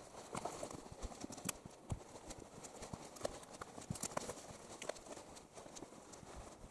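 Footsteps on a forest floor, crunching through leaf litter and brush in an irregular series of steps and rustles.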